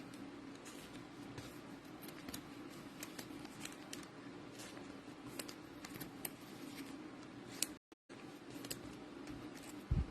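Faint crinkling and small ticks of trading-card packs being opened and cards handled, over a steady low hum. The sound cuts out briefly just before 8 s, and a soft low thump comes near the end.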